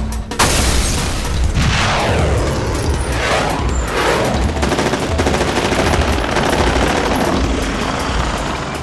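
Battle sound effects: rapid, continuous automatic gunfire and explosions, loud throughout. A blast comes just after the start, and sweeping whooshes follow in the next few seconds.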